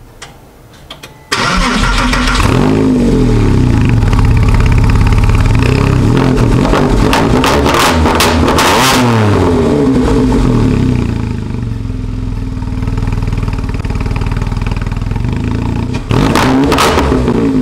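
2004 Porsche 911 Carrera's 3.6-litre flat-six engine starting about a second in, then revved several times, its pitch rising and falling, before settling to a steady idle. It is revved up again near the end.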